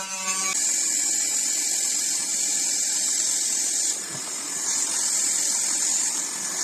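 Steady rushing hiss of a motor-driven air blower, with a humming tone in the first half second and a brief dip about four seconds in.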